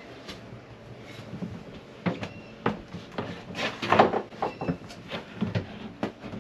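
Irregular knocks, bumps and rustling from someone shifting about in a cramped fibreglass compartment while handling the camera, loudest about four seconds in.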